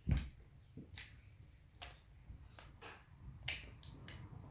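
Plastic Lego bricks clicking and knocking as pieces are handled and pressed together: a string of about seven sharp clicks, the first the loudest.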